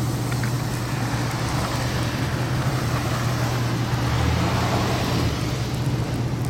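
Motor vehicle running with a steady low engine hum, plus road and tyre noise that swells and fades about midway.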